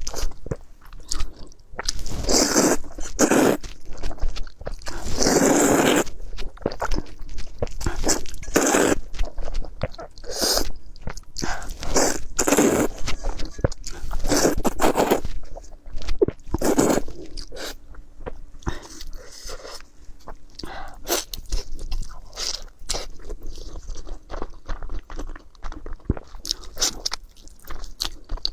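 A person eating close to the microphone, with wet, irregular bites and chewing of rice and noodles. The bites are louder and denser in the first half and turn to quieter chewing in the second half.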